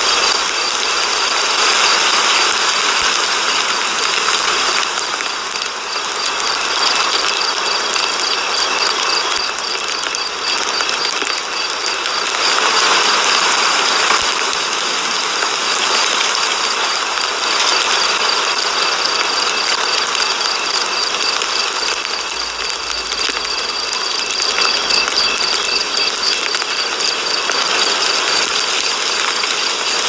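Engine idling at about 1,000 rpm, heard from inside the cab, with a steady, rapid mechanical ticking and rattling over a hiss.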